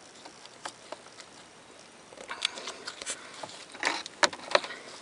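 Handling noises as fingers press cleaning putty into the ignition area on a car's plastic steering column: scattered soft clicks and rustles, growing busier about two seconds in, with a few sharp ticks in the second half.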